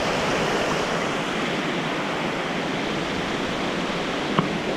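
Shallow mountain creek rushing steadily over rock ledges, with one brief sharp click near the end.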